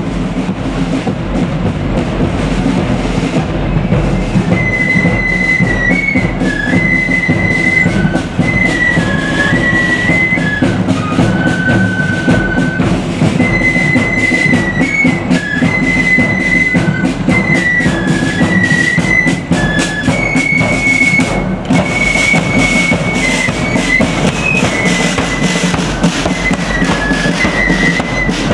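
Marching flute band: the side drums beat a steady march, and about four seconds in the flutes come in playing a tune over the drums.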